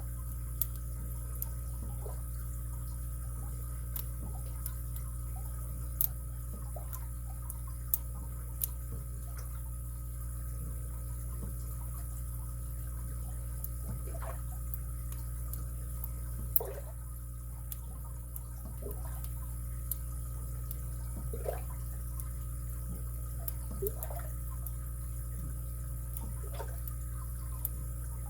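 Faint, irregular metallic clicks and short scrapes of a lock pick and tension wrench working the pins inside a padlock, over a steady low hum.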